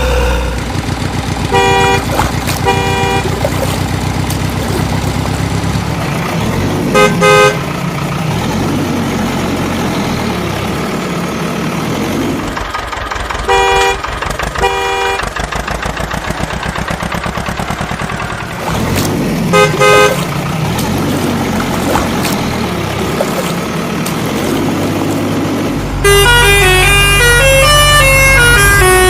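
Truck engine running with rising and falling revs, broken by pairs of short horn toots every few seconds. A melody of stepping notes starts about three seconds before the end.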